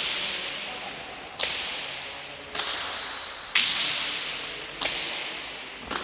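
A hand-pelota rally: the leather ball cracks sharply off players' hands and the fronton walls about once a second, five times. Each crack rings on in the echo of the empty hall.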